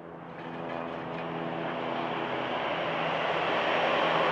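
Airbus A320's CFM56 jet engines running with a steady hum, growing steadily louder.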